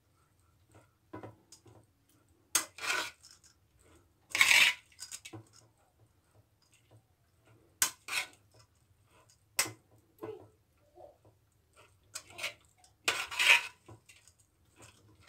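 Steamed vermicelli noodles being rubbed and tossed by hand in a metal pot as water is worked in. Soft rustles and clicks against the pot are broken by a few short scraping rushes, the loudest about four seconds in and near the end.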